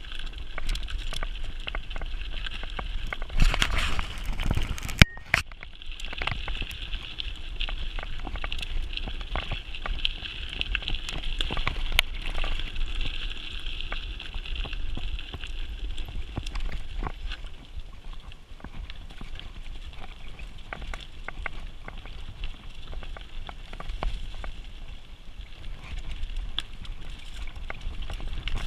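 Mountain bike ridden over a gravel forest road and dirt trail: tyres crunching and crackling over loose ground, with a constant rattle of small clicks and knocks from the bike and a few louder knocks, about four seconds in and again near twelve seconds. A low rumble of wind and vibration runs underneath.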